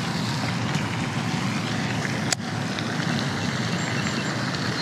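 Wind blowing across the microphone, a steady low rushing noise, with one brief click about halfway through.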